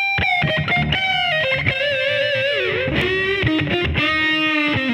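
Intro music: an electric guitar with distortion playing a short lead melody, its notes bent and wavering with vibrato.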